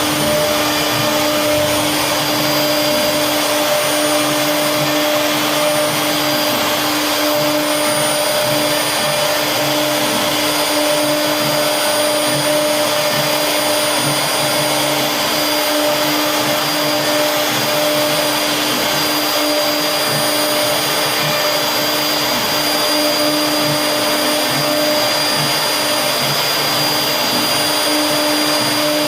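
CNC wood router running steadily while carving, its spindle giving a constant whine over the noise of the cut.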